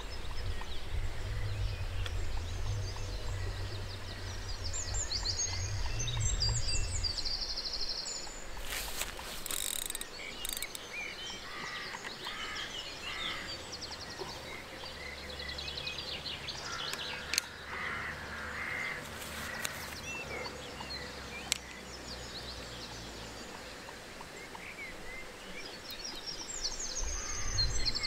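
Songbirds chirping and warbling along a river bank. There is a low rumble for the first seven seconds and again at the very end, and two sharp clicks in the middle.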